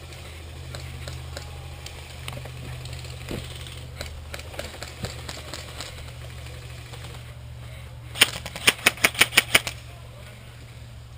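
Airsoft rifle firing a rapid full-auto burst of about ten loud, close shots, roughly seven a second, near the end, after scattered faint shots popping in the distance.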